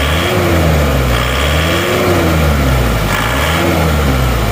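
Isuzu Panther diesel engine running, revved up and let fall back about three times. Its blocked PCV valve has just been cleaned and its valve clearances reset.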